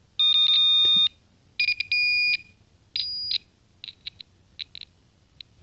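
Piezo speaker touched to successive address lines of a 6502 computer, each touch giving a steady buzzing tone as the line toggles. There are three tones, the first two about a second long and the third shorter, then a string of brief, weaker blips as the tone gets hard to hear.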